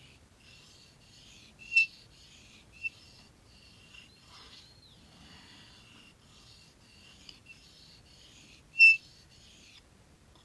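Casström No.10 Swedish Forest Knife blade being drawn across a sharpening stone: repeated rasping strokes, about two a second, with a faint ring from the steel. Two short, loud, high-pitched pings stand out, about two seconds in and again near the end.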